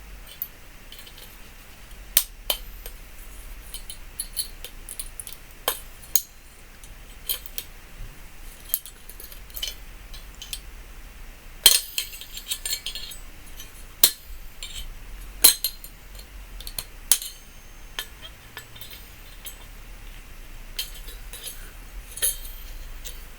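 Irregular metal clinks and clicks from hand tools and scrap microwave parts being handled and knocked together during dismantling. The loudest clink comes about halfway through.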